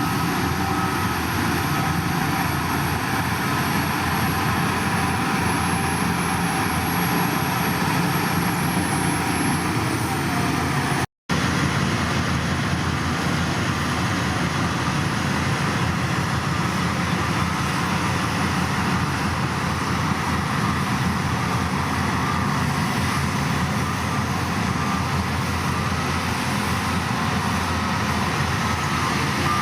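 Heavy diesel construction machinery running steadily at work, with a momentary break in the sound about eleven seconds in.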